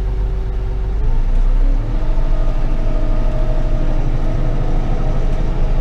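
Bobcat compact tractor's diesel engine running, revving up about a second in as the tractor pulls away, with wind rumbling on the microphone.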